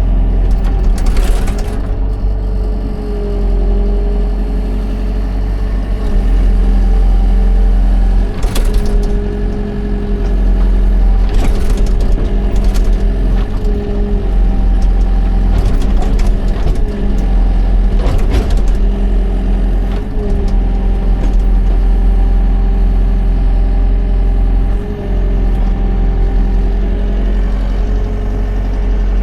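Excavator diesel engine running steadily under load, with a wavering hydraulic whine over the engine hum. Several sharp metallic clanks come through, a cluster of them about two thirds of the way in.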